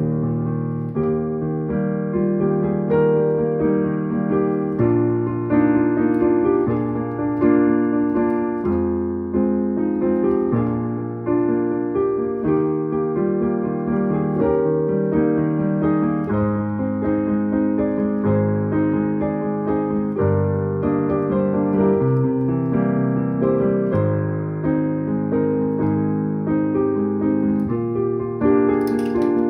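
Digital piano played with both hands: sustained chords with a melody over them, changing every second or two.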